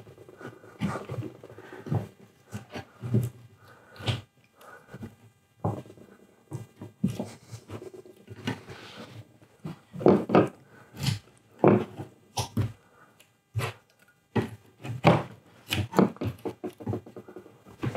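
Steel scraper being pushed under melamine sheeting to pry it off the particle board beneath: an irregular series of short scrapes and knocks.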